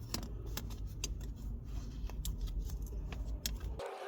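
Scattered small clicks and rustles from hands working a leather gear stick gaiter onto the plastic clips of a car's centre console, over a low rumble that stops abruptly near the end.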